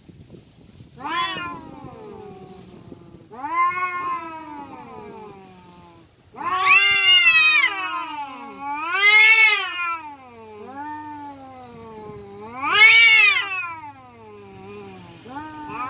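Two domestic cats yowling at each other in an aggressive standoff: long, drawn-out caterwauls that waver up and down in pitch and swell loud about five times, with quieter growling yowls between. This is the threat yowling of two cats squaring up to fight.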